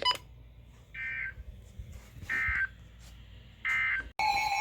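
Three short, high data bursts about a second apart: the EAS end-of-message code that closes a NOAA Weather Radio warning broadcast. Near the end it cuts to a steady high alert tone, the start of the next warning's 1050 Hz alarm tone.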